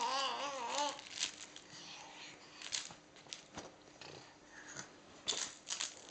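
Baby babbling in a wavering, singsong voice for about the first second, then scattered rustles and taps from a soft hanging toy being grabbed and shaken, with a sharper cluster of them near the end.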